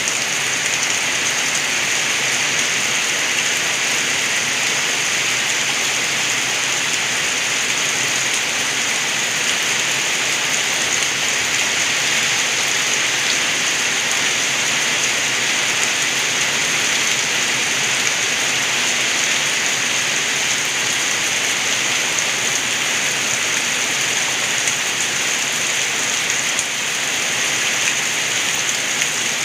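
Rainwater gurgling as it runs off, with steady rain falling; an even, unbroken wash of water noise.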